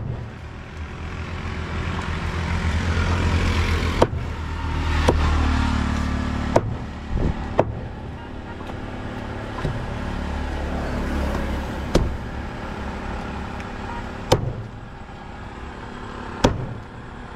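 Road traffic passing, the rumble of vehicles swelling and fading, with about eight sharp knocks spaced one to two seconds apart from a cleaver chopping through fish.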